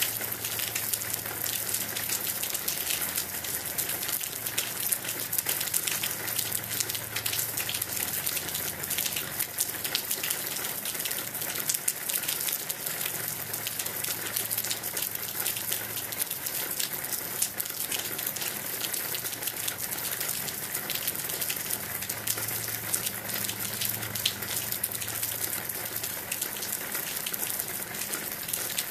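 Steady rain falling, a constant rush of water with many separate drops ticking close by.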